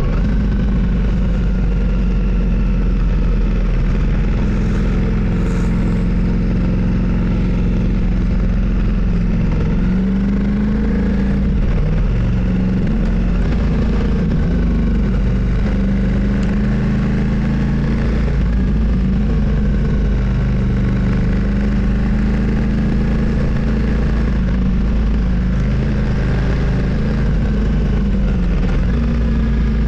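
Motorcycle engine running steadily while riding, its pitch dipping and rising a little as the speed changes.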